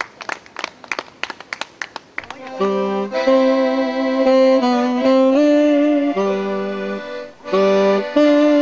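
Rhythmic hand clapping, about four or five claps a second. About two and a half seconds in, a tenor saxophone comes in with accordion, playing a slow melody of held notes.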